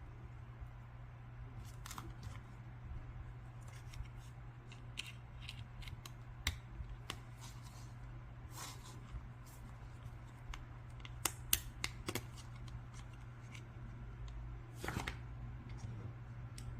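Scattered small clicks and light plastic handling noises: the buttons of a C-601 digital fridge thermometer being pressed and the unit handled while its alarm is set, over a steady low hum.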